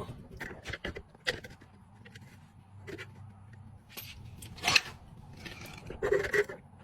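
Knocks, clicks and scraping of tools and plastic parts being handled while a washing machine is being taken apart, with the loudest knock about two-thirds of the way through and a short scraping rattle near the end.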